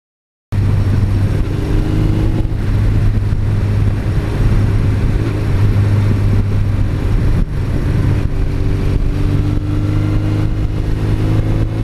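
Suzuki GS1100E's air-cooled inline four-cylinder engine running steadily as the motorcycle cruises, heard from on board. The sound cuts in abruptly about half a second in.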